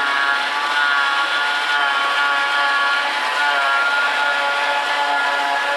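John Deere 7500 self-propelled forage harvester running under load while picking up and chopping grass. It makes a steady machine drone with a high whine that wavers slightly in pitch.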